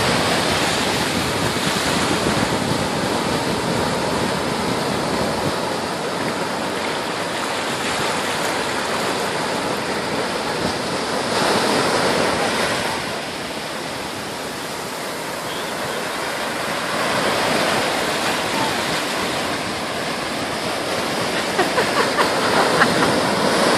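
Ocean surf breaking and washing up the beach: a continuous rushing that swells and eases, with a quieter lull about halfway through.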